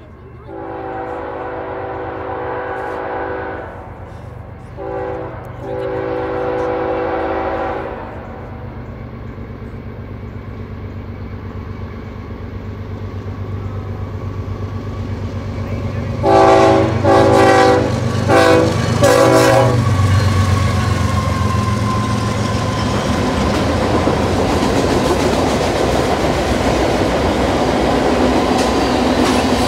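BNSF freight locomotive's horn sounding long blasts with a brief toot between them, then about 16 s in four short, loud blasts as a horn salute. The locomotives then pass and the freight cars roll by with a steady rumble and clicking wheels on the rails.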